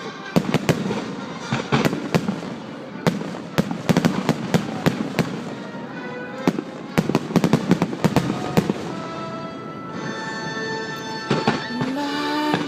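Display fireworks going off in quick succession: many sharp bangs and crackles, thinning out in the last few seconds.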